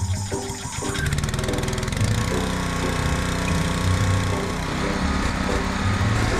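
Small gasoline engine of a pressure washer running, getting louder and steady about a second in, with background music over it.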